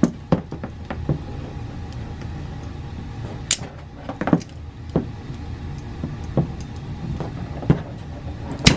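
Vise-Grip locking pliers crimping a metal sleeve onto aircraft cable for a leash leader: scattered sharp metallic clicks and knocks from the tool and cable being handled, the loudest near the end, over a steady low hum.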